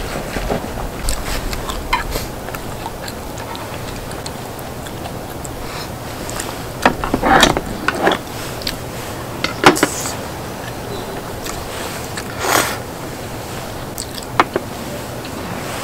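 Eating sounds: chewing and a few short, louder mouth noises, with scattered light clicks of utensils, over a steady background hiss.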